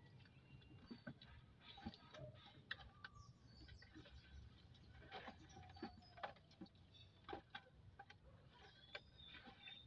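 Near silence: faint, scattered clicks and ticks with a few faint short chirps.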